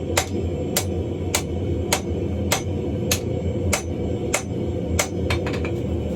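Hand hammer striking steel on an anvil while forging a hammer eye drift, in an even rhythm of a little under two blows a second. Near the end come a few quicker, lighter taps. A steady low rumble runs underneath.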